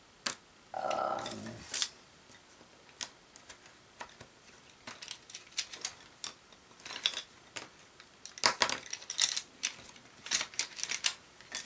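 Wooden colored pencils clicking and clattering against each other and on a tabletop as they are picked up and sorted by hand, in irregular bursts that grow busier near the end.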